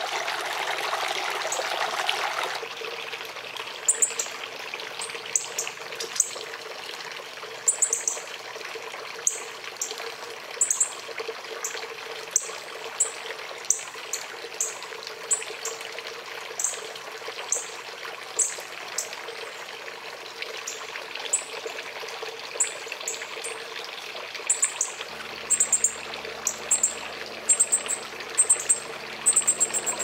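Northern cardinal chip calls: short, sharp, high notes about once a second, coming faster near the end as the adult male comes in to feed the fledgling. A steady trickle of water, louder for the first two seconds or so, runs underneath.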